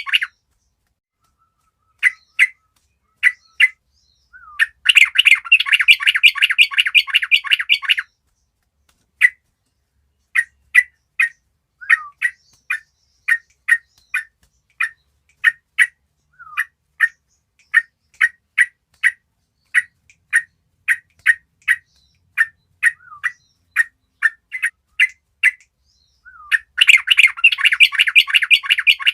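Young yellow-vented bulbuls (trucukan) calling. A burst of dense, rapid chattering comes about four seconds in and another near the end; between them come single short chirps at about two a second.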